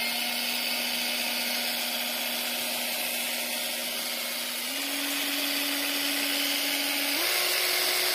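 Small motor of a rechargeable handheld electric egg beater running with its whisk spinning in the air, a steady whine that steps up in pitch twice, about halfway through and near the end, as it goes up to higher speed settings.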